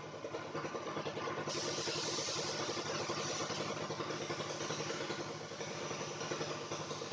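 A small motor running steadily with a rapid, even pulse, and a hiss above it that gets brighter about a second and a half in.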